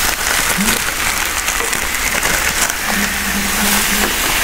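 Marinated lamb sizzling on a hot grill, with a steady hiss and scattered popping crackles of fat.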